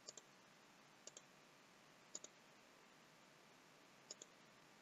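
Computer mouse button clicked four times, faintly, each click a quick pair of ticks, over low hiss.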